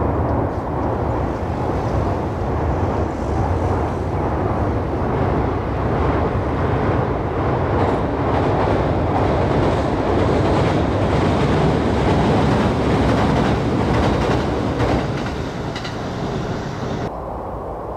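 Train running past on the rails: a loud, steady rumble of wheels on track that eases off after about fifteen seconds and drops abruptly about a second before the end.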